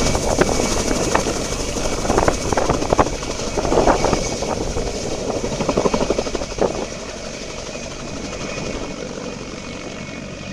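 Mi-2 helicopter's twin GTD-350 turboshaft engines whistling high over the choppy noise of the rotor. The sound is loud at first and grows fainter about seven seconds in, the high whistle fading with it.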